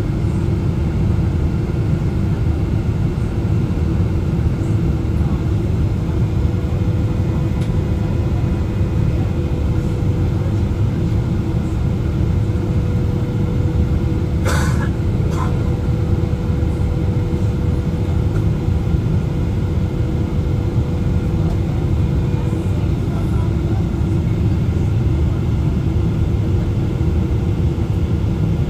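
Steady low cabin rumble of a Boeing 777-300ER descending on approach: engine and airflow noise heard from inside the cabin, with a faint steady hum above it. Two brief clicks about halfway through.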